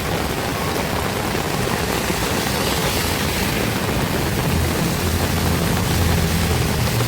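Heavy rain pouring steadily, with a low rumble building in the second half.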